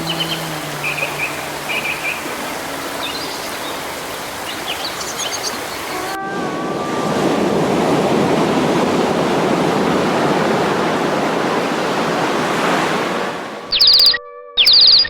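Steady rushing noise like surf or running water, with a few faint bird chirps over the first half. About six seconds in it switches to a louder rush that swells and then fades. In the last second or so it gives way to short chopped bursts of music with high chirping notes.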